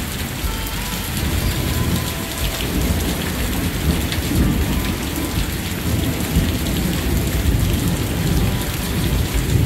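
Heavy rain pouring down in a thunderstorm, with a low rumble of thunder rolling on and off throughout.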